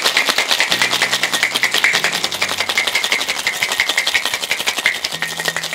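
Ice cubes rattling inside a metal cocktail shaker, shaken hard in a fast, steady rhythm, chilling and mixing a whisky, grapefruit juice and sugar syrup drink.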